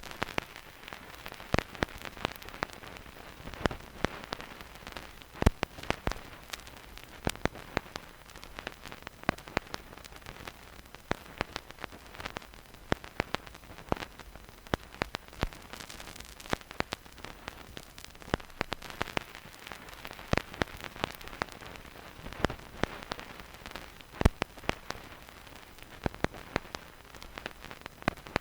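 Vinyl record surface noise with no music: a steady hiss under irregular crackles and pops from the stylus in the groove, a few pops much louder than the rest.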